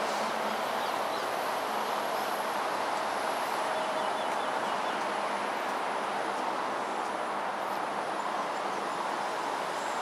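Steady, even rushing background noise, with a few faint high chirps about four seconds in.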